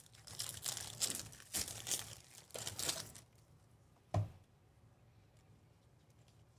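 Foil trading-card pack wrapper crinkling and tearing as it is opened, in a run of rustling bursts for about three seconds. About four seconds in comes a single short knock.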